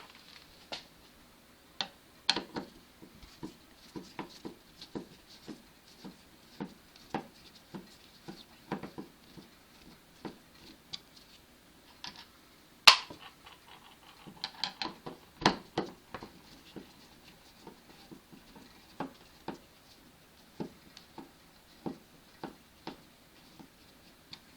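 Screwdriver working the screws out of a refrigerator door handle: a string of small irregular clicks and scrapes of the tool tip in the screw heads, with a few louder knocks of metal against the handle.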